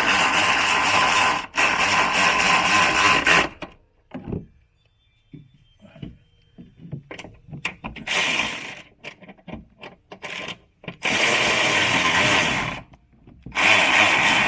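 A power tool runs in several long bursts, about three seconds at first, then shorter runs, during a coilover suspension install. Between the bursts there are short clicks and knocks of parts and hand tools.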